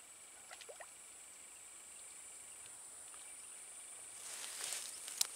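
Quiet open-swamp ambience: a steady high hiss, a few faint short chirps about half a second in, a brief rustle around four seconds in, and a single sharp click near the end.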